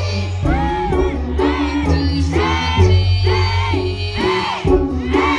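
Hip-hop beat with heavy bass played over a concert PA, with crowd voices shouting along.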